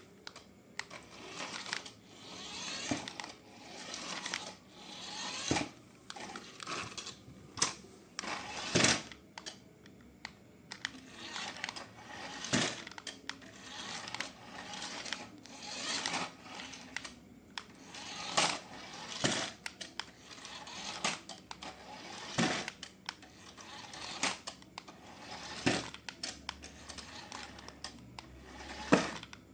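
Toy packaging and plastic parts being handled during unboxing: irregular rustling and scraping with sharp plastic clicks and taps every second or so.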